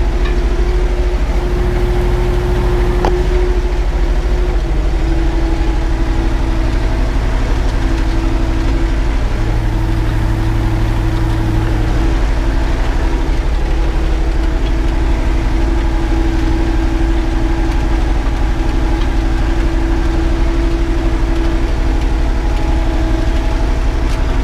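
Erkunt tractor's diesel engine running steadily under load, heard from inside the cab, as it pulls a harrow through soft, wet soil. Its note shifts slightly a few times.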